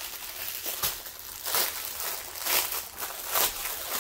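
Plastic wrapping around a roll of diamond-painting drill bags crinkling as it is handled, in several short rustles.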